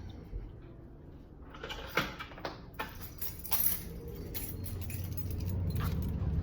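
Keys jangling with scattered clicks and knocks. A low rumble builds in over the last couple of seconds.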